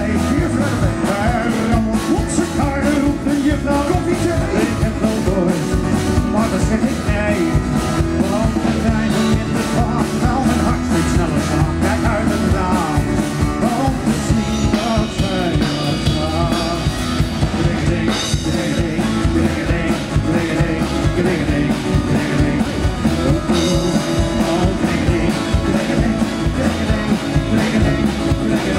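Live band playing an upbeat rock-and-roll number through a PA: a drum kit keeps a steady beat under electric and acoustic guitars.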